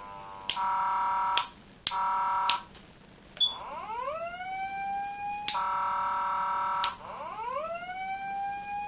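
Patlite SAP-500BK-PV electronic siren amplifier sounding its tones through a loudspeaker. Two short, steady, buzzy blasts of about a second each, switched on and off with sharp clicks, are followed by a siren tone that winds up in pitch and levels off. Then comes another buzzy blast, and the siren winds up again near the end.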